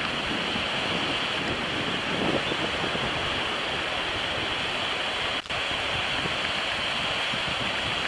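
Steady rushing noise of wind and small waves breaking on the shore, with a brief dropout about five and a half seconds in.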